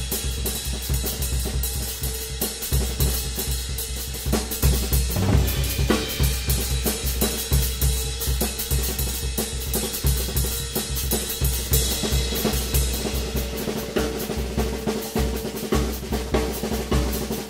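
Acoustic drum kit played solo with sticks: fast strokes on snare and toms over a pulsing bass drum, with hi-hat and cymbals. A cymbal wash rings out more strongly about two thirds of the way through.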